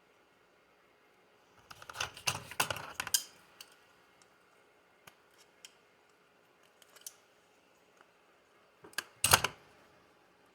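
Small hard parts clicking and tapping as RC buggy suspension pills are handled and pushed into the rear arm mounting blocks: a quick flurry of clicks about two seconds in, a few scattered ticks, then a sharp cluster of clicks near the end.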